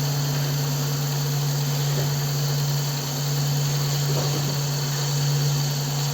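CNC wood lathe running with a steady low hum.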